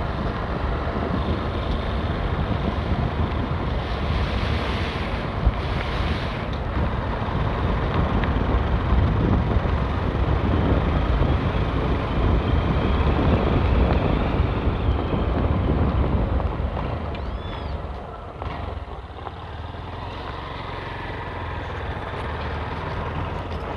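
Motorcycle ride heard from the rider's microphone: engine running with wind rushing over the mic. It gets quieter for the last few seconds.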